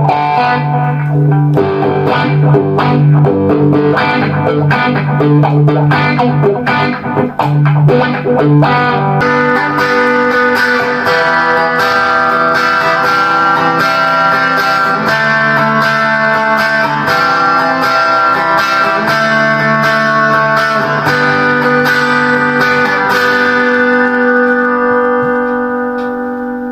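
Electric guitar playing: quick picked notes for about nine seconds, then held, ringing chords that fade out near the end.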